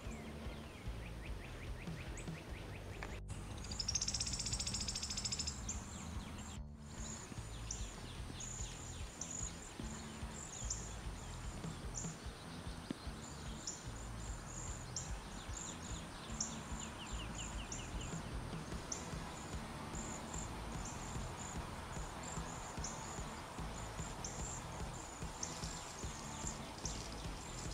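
Wild birds singing: a burst of high birdsong about four seconds in, then short high chirps repeating every second or so, over a low steady rumble. The sound cuts out briefly twice, near 3 and 7 seconds.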